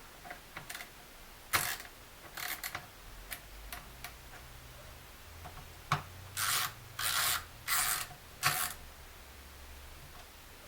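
Hand work inside the back of a plasma TV: scattered light clicks, then four short scraping or rubbing sounds in quick succession in the second half.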